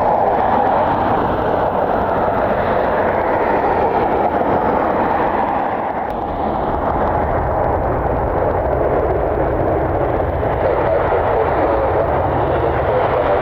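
Jet airliner's engines at high power, loud and steady, dipping briefly about six seconds in.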